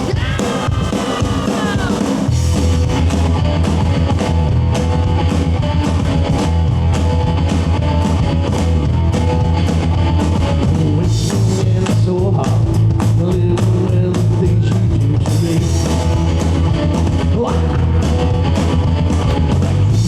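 Rock music with electric guitar, drums and a heavy bass line that comes in about two seconds in, played loud at a gig.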